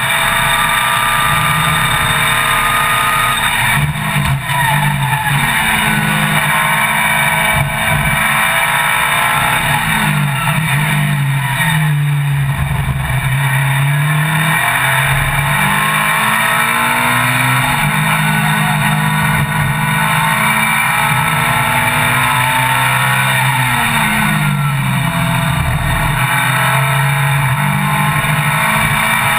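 Ferrari 430 GT Cup race car's V8 engine at full racing effort, heard from inside the cockpit. The engine pitch climbs and drops repeatedly over the lap as it accelerates, shifts and slows for corners.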